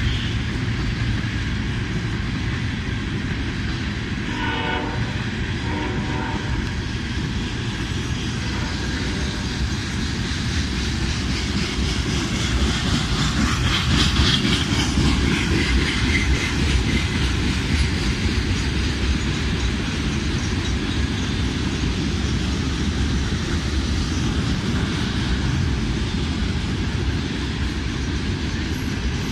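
Freight train rolling past with a steady rumble and clickety-clack of its wheels on the rail joints. Two short horn blasts sound a few seconds in.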